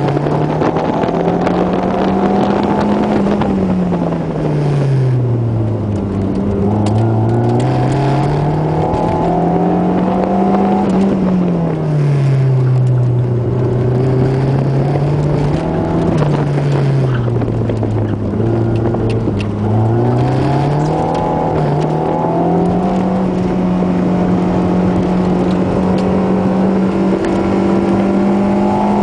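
Car engine heard from inside the cabin, driven hard on an autocross run. The revs climb and fall again and again as the car accelerates and slows between the cones, then hold steady and high near the end.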